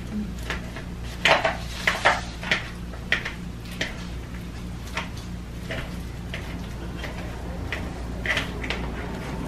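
A fork clicking and scraping against a bowl at irregular intervals as soft avocados are mashed, with a run of sharper clicks about one to three seconds in and more near the end.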